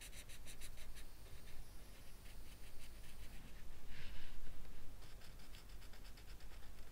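Felt-tip pen scribbling on paper in fast back-and-forth colouring strokes, several a second. The strokes pause in the middle, with a brief louder rustle on the paper about four seconds in, then start again.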